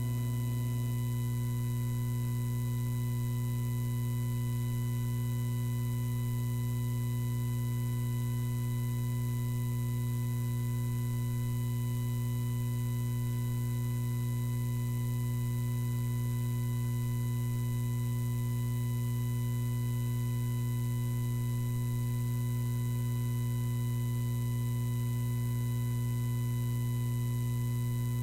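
Steady electrical mains hum in the sound system, a constant low buzz with fainter higher tones that never changes. The last trace of guitar music dies away in the first second.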